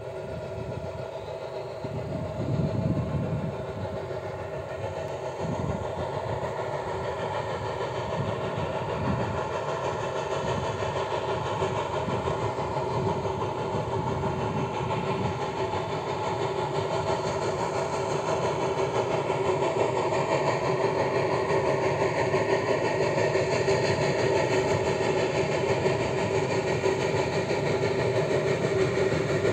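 Narrow-gauge steam locomotive working as it approaches with its train: a steady mechanical hum that grows gradually louder, with some low rumbling in the first half.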